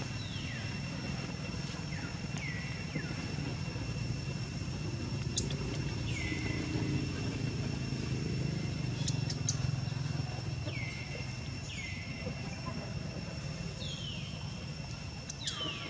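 Outdoor ambience: a low steady rumble and a steady high-pitched drone, with short falling whistled calls every few seconds, often in pairs, and a few faint clicks.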